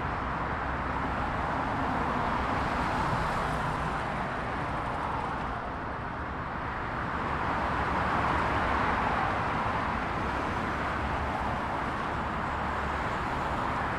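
Dense motorway traffic close by: a continuous stream of cars passing, their tyre noise swelling and easing as vehicles go by, with a dip about six seconds in and a louder pass soon after.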